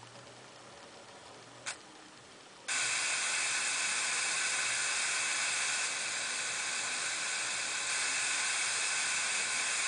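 A single click, then about a second later a loud, steady hiss like an untuned TV starts and keeps going. It is a PC's audio output giving white noise in place of a video's sound, a fault in which all the computer's sounds are replaced by this hiss.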